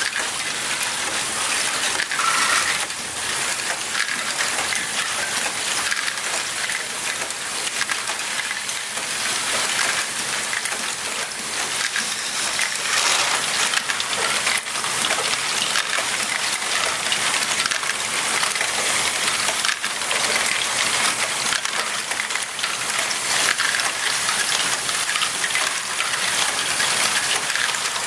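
A Lego ball machine running: many small plastic balls clatter and rattle continuously through plastic conveyors, cups, lifts and wheels, a dense crackle of countless tiny clicks.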